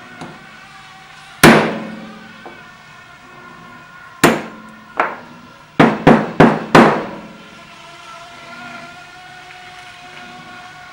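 Hammer striking metal steering-rack parts: seven sharp ringing blows, one, then two a little apart, then four in quick succession about halfway through.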